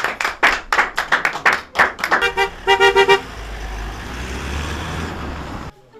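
Hand clapping for about two seconds, then a car horn tooting in two quick runs of short beeps. After the horn comes the low rumble of a car engine and tyres, which cuts off suddenly near the end.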